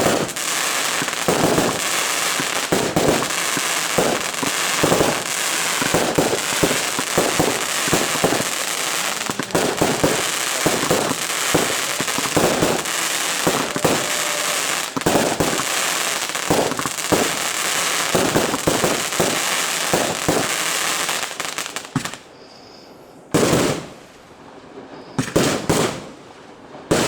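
Fireworks display firing a dense, continuous barrage of bangs over steady crackle. It stops abruptly about 22 seconds in, followed by a few short, separate bursts of bangs near the end.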